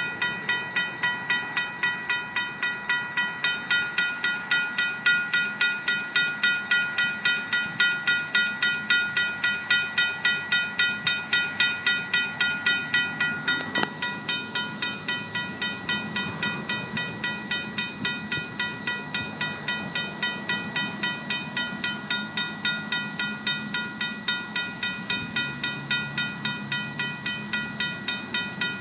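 RACO mechanical crossing bell ringing continuously, rapid evenly spaced strikes with a bright metallic ring. From about halfway through, a low diesel rumble from the approaching Union Pacific GP38-2 locomotives rises underneath.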